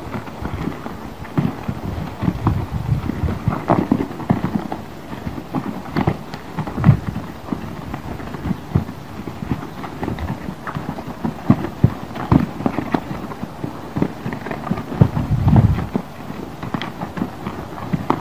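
Horse's hooves thudding and scuffing in loose sand as it steps sideways under a rider, an irregular run of soft thuds.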